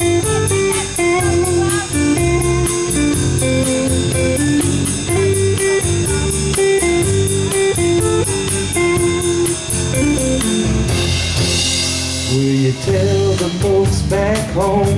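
Live rock band playing an instrumental passage: guitars carry a stepping melody over bass and a drum kit with a steady cymbal tick. A cymbal crash rings out about eleven seconds in, followed by a short break in the beat.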